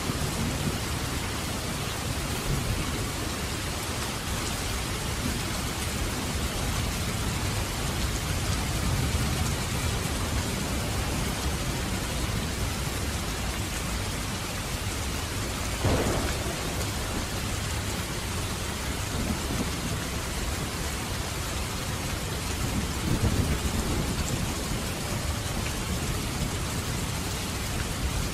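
Steady rain, with low rumbles swelling now and then and a single sharp tap about halfway through.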